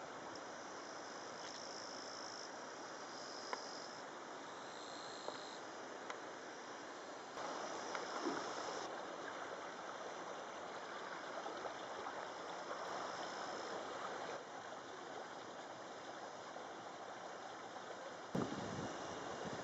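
Faint outdoor ambience: a steady rushing noise, with insects trilling in high bands that start and stop every second or so, and the noise swelling briefly a few times.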